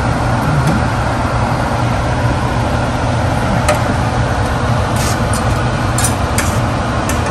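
Steady low mechanical hum of a running motor or fan, with a few sharp clicks in the second half.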